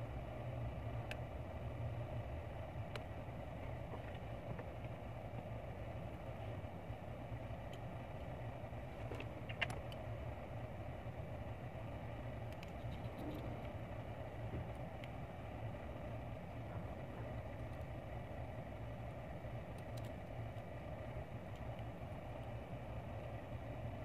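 A steady low background hum, with a few light clicks from the opened iPhone X's parts being handled. The sharpest click comes about ten seconds in.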